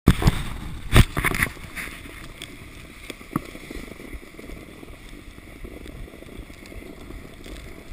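A plastic sledge being towed over a snowy road, a steady hiss and scrape of sliding, with several loud knocks in the first second and a half and another about three and a half seconds in.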